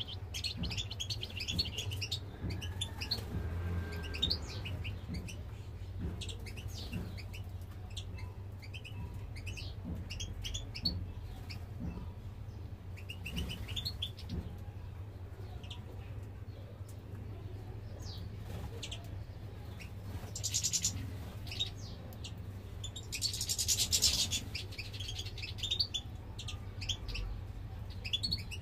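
A flock of European goldfinches twittering, with frequent short, high chirps. Twice in the last third comes a brief burst of rustling.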